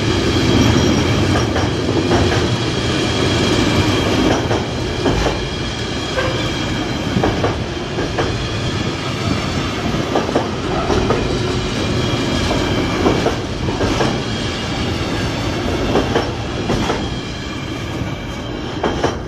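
Container flat wagons of a long freight train rolling past, the wheels clattering with repeated irregular knocks over the track. The noise eases off near the end as the last wagon goes by.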